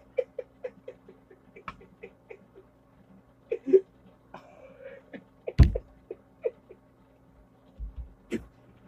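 A man laughing to himself in short breathy giggles, several a second, then a few louder bursts of laughter. About five and a half seconds in there is one loud thump.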